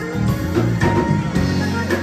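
Live R&B band playing: a drum kit keeps a steady beat about two strokes a second under an electric keyboard, electric guitar and saxophone.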